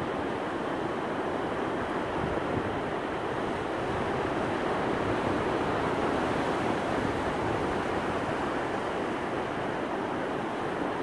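Ocean surf breaking and washing up a sandy beach: a steady rush of waves that swells a little around the middle.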